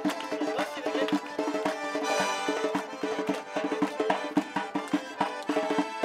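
Fast traditional Caucasian dance music: a sustained melody over a quick, steady drum beat.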